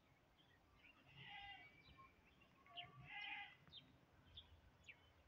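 Faint outdoor sounds: two short animal calls, about a second and about three seconds in, with several quick high chirps of small birds between them.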